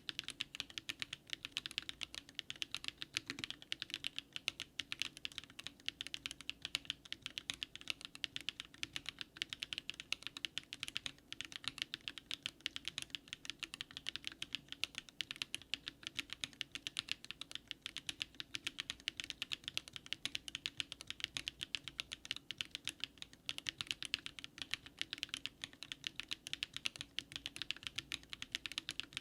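Continuous fast typing on a DARING RUN DR-70F mechanical keyboard fitted with SW X HMX Catmint switches: a dense, unbroken run of keystroke clacks.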